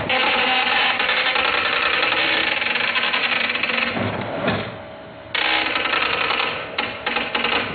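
Dot matrix printer printing: the print head's pins striking in a rapid, dense chatter. About four seconds in it stops for about a second with a low thump, then resumes, coming in short stop-start bursts near the end.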